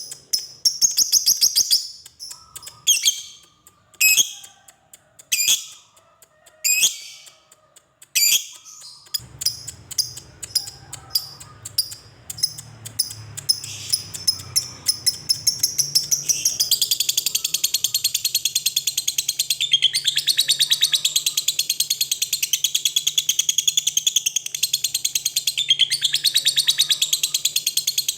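Lovebird calling: first a string of short, shrill calls about a second apart. Then, from about nine seconds in, rapid chirps that speed up into a long, unbroken fast chattering trill, the 'ngekek' call. A low hum comes in under it about nine seconds in.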